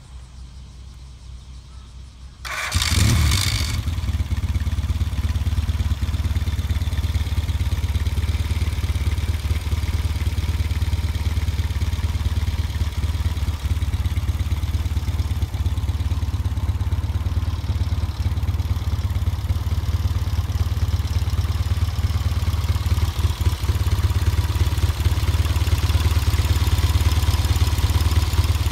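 Yamaha TX650 motorcycle's 650 cc air-cooled parallel-twin engine starting about two and a half seconds in, catching quickly, then running steadily, a little louder in the last few seconds.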